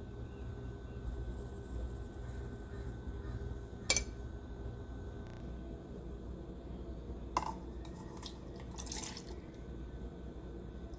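Kitchen sounds while making batter: a sharp clink about four seconds in and a smaller tap a few seconds later, then milk pouring from a glass measuring cup into a mixing bowl near the end, over a low steady hum.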